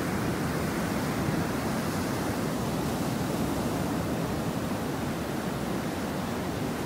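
Rough sea surf: waves about 1.2 to 1.5 metres high breaking continuously onto a sandy shore, a steady rushing wash with no let-up.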